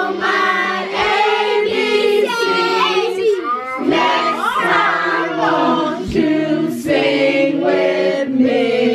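A group of children and adults singing a song together.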